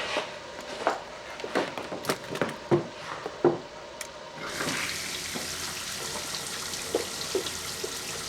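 Kitchen clatter of utensils and cookware knocking, then, about halfway in, a steady sizzle of food frying in a pan starts.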